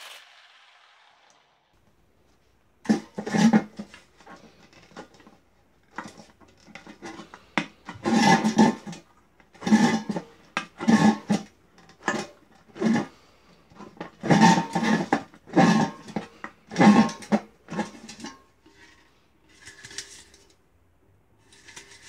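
Thin tin lid of a large metal can being pressed and bent by hand, its star-cut flaps forced inward: a run of irregular loud metallic clanks and pops, each ringing briefly at the same few pitches in the hollow can. A few softer clanks follow near the end.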